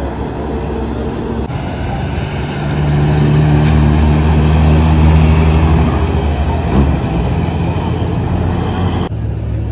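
Intercity coach bus's diesel engine running as the bus pulls out and drives past, loudest a few seconds in. The sound changes abruptly about a second and a half in and again near the end.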